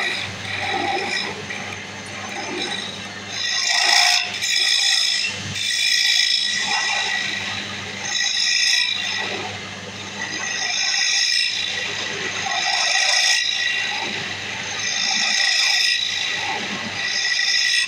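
Wood lathe running with a steady hum while a hand-held chisel scrapes into the end face of the spinning wooden blank, hollowing out a recess; the cutting comes in repeated scraping passes every second or two.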